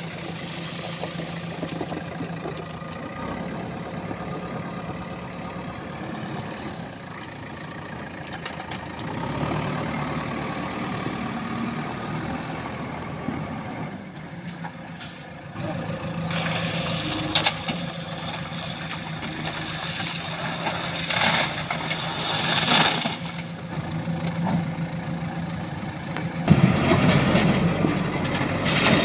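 JCB 3DX backhoe loader's diesel engine running steadily, with several loud bursts of clatter in the middle as metal is loaded, and the engine getting louder near the end.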